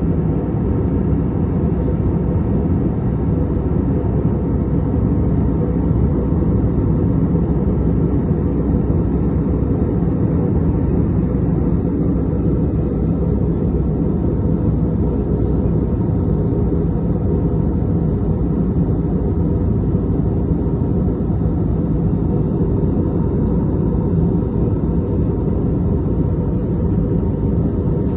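Steady cabin noise of a jet airliner in cruise, heard inside the cabin: a low, even rush of engine and airflow noise with a faint steady hum in it.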